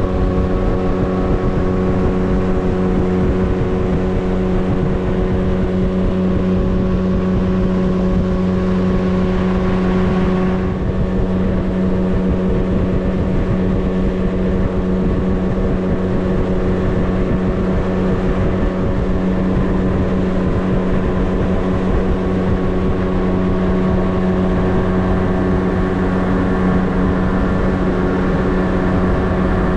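Boat's outboard motor running at a steady cruising speed with a constant engine drone as the boat travels along the river, a rushing noise of wind and water under it that eases slightly about ten seconds in.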